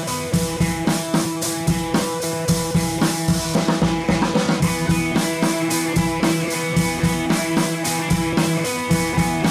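Background music: a rock-style track with a steady drum beat over held guitar and bass notes.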